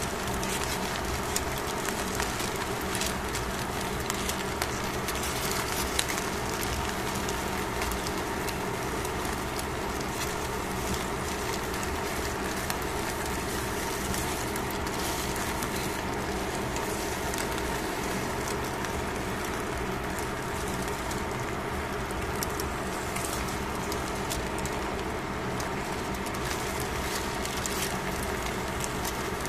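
Salted fish fillets sizzling on aluminium foil in a metal pan, a steady hiss over a faint hum, with scattered light clicks from a wooden spatula and tongs.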